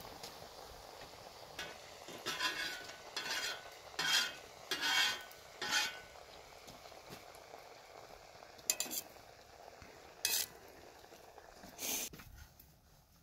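Food sizzling in a cooking pot while a utensil stirs and scrapes it. A run of short scrapes comes a couple of seconds in, then three more spaced apart. The sizzle drops away near the end.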